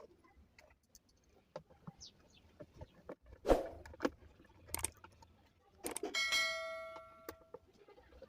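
Scattered knocks and clicks of parts and tools being handled while a small home-theater unit is reassembled; about six seconds in a metal part clangs and rings, fading over about a second and a half.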